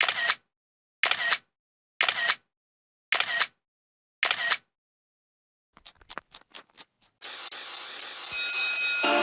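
Aerosol spray paint can hissing in five short bursts about a second apart. A few faint clicks follow, then a longer steady spray near the end.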